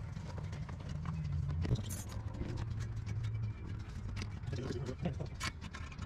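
A car engine idling steadily in the background, with scattered light clicks and knocks over it.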